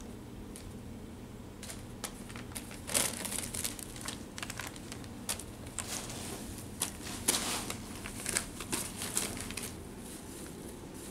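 Brown kraft packing paper crinkling and rustling in irregular bursts as kittens paw at it and burrow into it. The crinkling starts about two seconds in.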